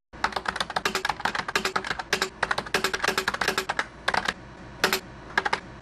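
Keyboard typing: rapid, irregular keystroke clicks for about four seconds, a short pause, then a few more spaced-out keystrokes.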